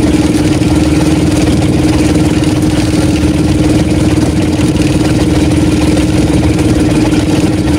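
Motorized outrigger fishing boat's engine running steadily, a constant drone with a low rumble.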